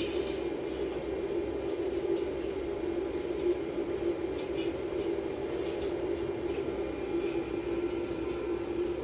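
A steady machine hum with scattered light clicks and ticks over it.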